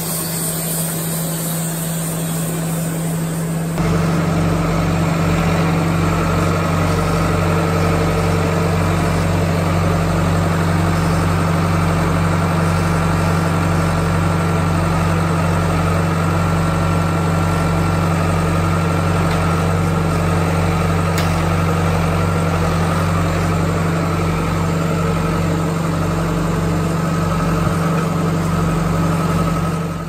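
An engine running steadily with a deep, even hum, fading in and growing louder about four seconds in.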